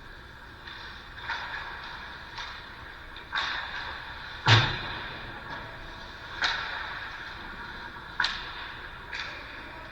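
A series of about eight irregularly spaced sharp knocks, each dying away quickly; the loudest, about four and a half seconds in, carries a low thud.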